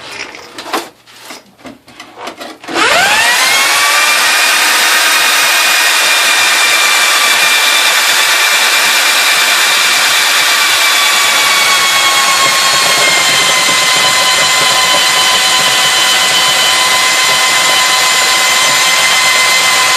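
A few knocks, then a motor-driven drain snake spins up about three seconds in and runs steadily with a loud high whine, its pitch sagging slightly partway through as the cable works against a clog in the drain.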